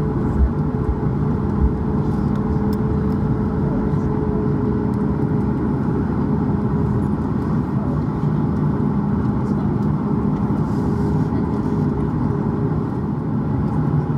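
Cabin noise inside a Boeing 737 MAX 8 from a seat over the wing: its CFM LEAP-1B engines run at low taxi thrust with a steady hum while the jet rolls slowly. Two low thumps come about half a second and a second and a half in.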